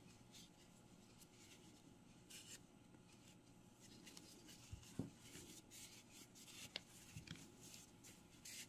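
Near silence with faint rustling and scratching of yarn being drawn through crocheted stitches with a crochet hook as the yarn tail is woven in, and a couple of soft taps, the loudest about five seconds in.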